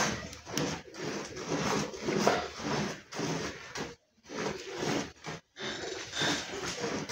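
Hand milking a cow: milk squirting from the teats into a metal bucket of frothy milk in short, rhythmic squirts about twice a second. The sound cuts out twice, briefly, past the middle.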